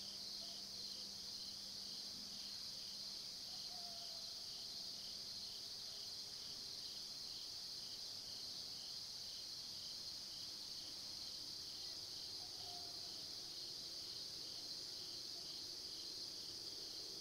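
Faint, steady chorus of crickets and other insects: a continuous high-pitched trill with a pulsing chirp repeating about twice a second beneath it.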